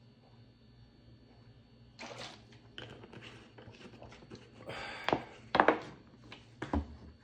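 Small objects handled on a wooden table: a run of clicks and rustles, then several sharp knocks and a dull thunk near the end.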